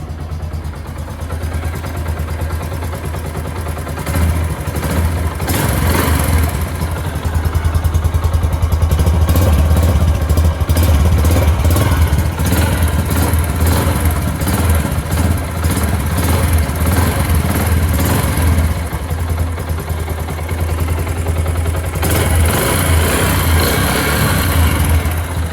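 Yamaha YBR125's single-cylinder four-stroke engine running, growing louder a few seconds in. Its exhaust seal at the cylinder head has just been replaced to cure an exhaust leak.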